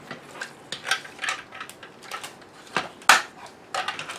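Plastic food-processor accessory parts being unwrapped from a plastic bag and set down on a table: irregular clicks, light knocks and crinkling, with the sharpest knock about three seconds in.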